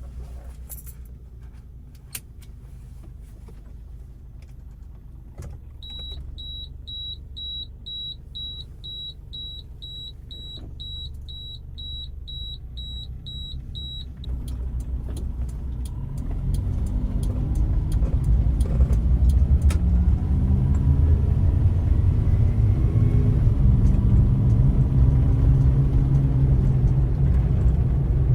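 Suzuki Jimny JA11's small engine running with a low rumble, while a high in-car warning beep sounds about twice a second for around eight seconds. After the beeping stops, a little past halfway, the engine grows much louder and stays loud.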